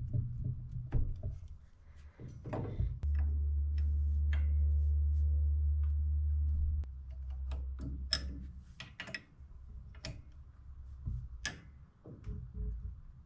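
Scattered light clicks and metallic taps of hand tools and small parts as a tractor carburetor is taken apart. A steady low rumble runs for about four seconds in the middle.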